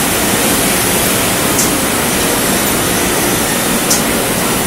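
Steady, even rushing din of a ceramic tile glazing line's conveyors and machinery running, with two short high clicks, about a second and a half in and again near the end.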